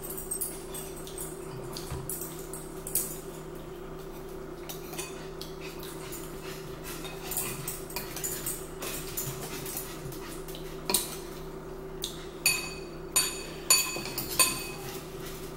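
Metal spoons clinking and scraping against ceramic bowls while eating, a few scattered clinks at first and a quicker run of sharp, ringing clinks in the last few seconds, over a steady low hum.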